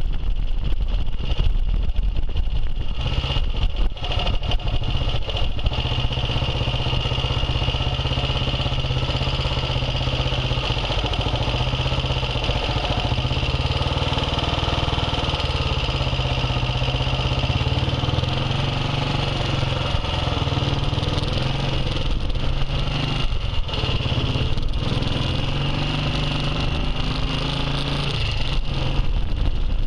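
Classic motorcycle engine running as the bike rides slowly through city streets, wind buffeting the microphone in the first seconds. Through the middle it settles to a steady low note as the bike slows, then revs rise and fall repeatedly in the last third as it pulls away through the gears.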